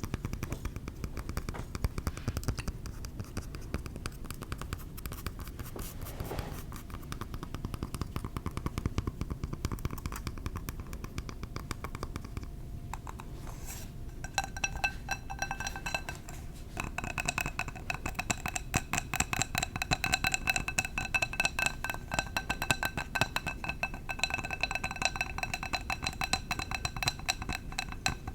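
Rapid, continuous tapping on a glass candle jar. About halfway through, the taps start to ring out with clear, bell-like glass tones.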